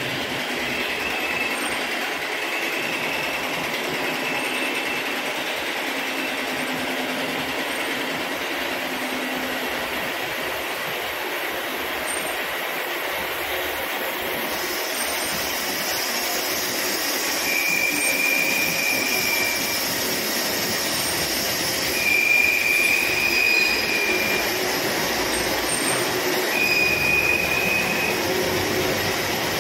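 Milling machine cutting a steel helical pinion: steady machining noise with a high-pitched whine from the cutter that comes and goes, loudest three times in the second half.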